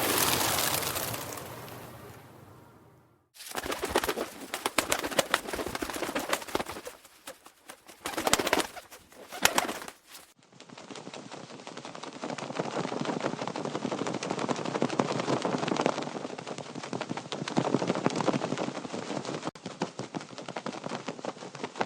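Birds' wings flapping in a rapid flutter. A loud burst fades away over the first few seconds, dense flapping follows with several surges, and from about ten seconds in a steadier, slightly duller flutter carries on.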